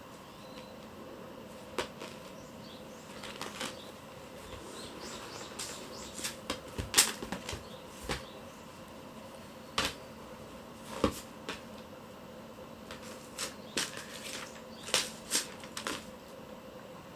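Kittens playing with a cat teaser toy: irregular swishes, rustles and light taps as the wand is flicked and the kittens bat and pounce at it, over a faint steady room hum.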